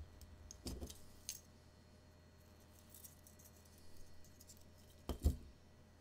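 Metal clinks and knocks of a Leatherman Signal multitool being handled and moved on a board: a cluster of clinks about a second in, and a louder double knock about five seconds in.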